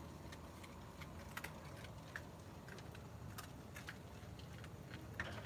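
Raccoons feeding: faint, irregular small clicks and crunches as they eat and paw at the food, over a low steady hum.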